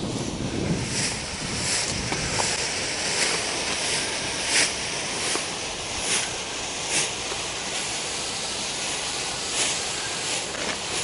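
Fireworks going off at a distance: about a dozen short bangs and pops at irregular intervals over a steady hissing rush.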